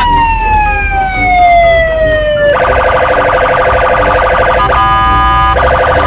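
Police patrol car's electronic siren: a long tone gliding slowly downward, then about two and a half seconds in switching to a fast, rapidly pulsing warble, broken near five seconds by a steady held tone.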